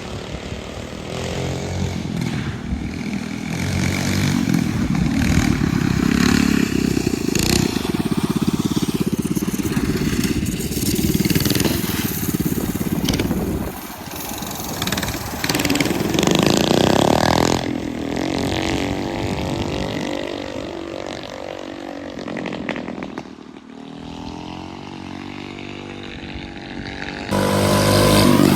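Go-kart's 6.5 hp 200cc single-cylinder engine running as the kart is driven, its pitch and loudness rising and falling with the throttle and with the kart's distance.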